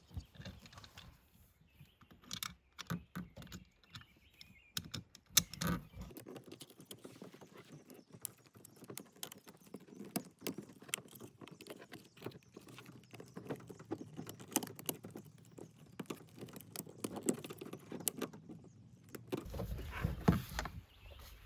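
Irregular clicks, taps and rustling as Romex cable is worked through the plastic strain relief of a 30 amp RV inlet plug, the cable and the plastic housing knocking and scraping against each other. A low rumble and a louder knock come near the end.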